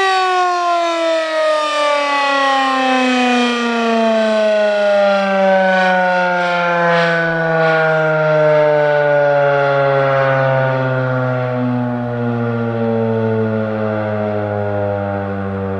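ACA P-15 outdoor warning siren winding down, its loud howl gliding slowly and steadily lower in pitch as the rotor coasts to a stop after the siren is switched off at the end of a test blast.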